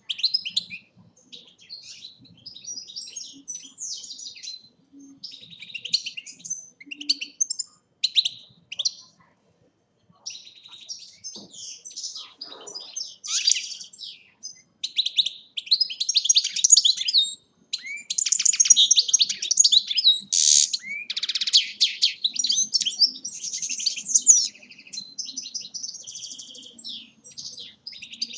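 European goldfinch singing. Short, separate twittering phrases come first, then about ten seconds in the song runs on almost without a break as a long stream of fast notes, loudest a little past the middle, before easing back to softer phrases near the end.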